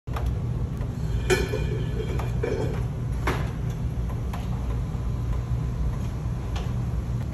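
A steady low mechanical hum with a few scattered knocks and clatters, about five, the loudest about a second and three seconds in.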